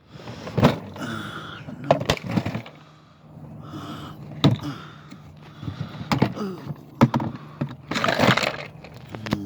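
Rummaging through a fishing tackle box: irregular clicks, knocks and rattles of hooks, lures and trays being handled, with a denser clatter near the end.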